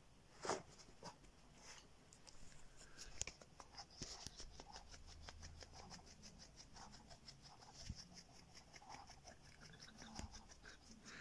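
Very faint rustling and a rapid run of soft clicks through the middle seconds, from a small fluffy dog rolling and rubbing its face on a carpet.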